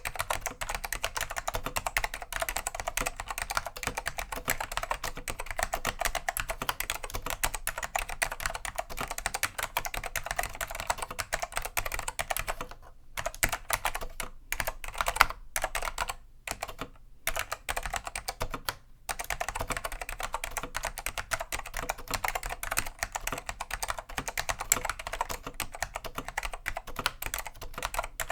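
Fast, steady typing on a Dell AT101 keyboard with Alps SKCM Black 'pine' tactile switches, cleaned and unlubricated, each keystroke a sharp click. The typing stops briefly several times in the middle, then carries on.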